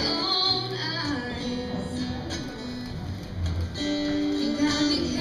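Music: a song led by acoustic guitar, with singing.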